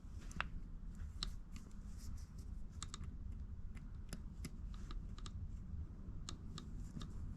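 Faint, irregular small clicks and ticks, a few per second, of a small Allen wrench working tiny screws out of a mini RC crawler's chassis, over a low steady hum.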